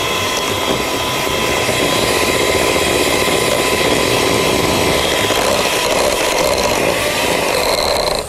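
Electric hand mixer running steadily with a whine, its beaters whisking egg into creamed butter and sugar for a cake batter, then switched off at the end.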